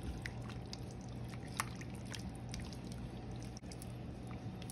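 Kitchen tongs stirring thin slices of raw beef through a soy-based sauce in a slow cooker crock: faint wet sloshing with scattered light clicks.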